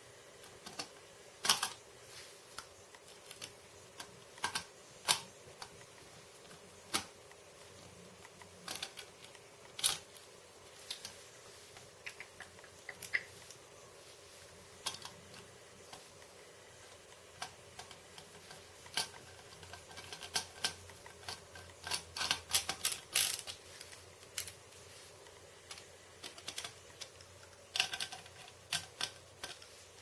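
Small screws being driven by hand into a metal drive adapter plate with a precision screwdriver: scattered light metallic clicks and ticks of the screwdriver bit and screws on the metal, with a fast run of clicks about two-thirds of the way through.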